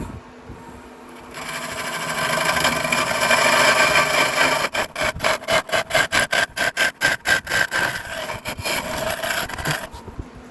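Turning tool cutting a spinning hickory mallet handle on a wood lathe, a coarse scraping hiss of wood being taken down. Midway the cut breaks into rapid pulses, about four or five a second, before running steadily again and fading out near the end.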